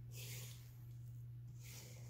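Silicone spatula scraping cookie dough around the sides of a stainless steel stand-mixer bowl, two soft scraping strokes, over a steady low hum.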